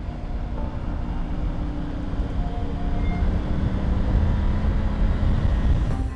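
Motorcycle riding along, its engine mostly buried in heavy wind rumble on the camera microphone; the bike is a Triumph Tiger 900 Rally with a three-cylinder engine.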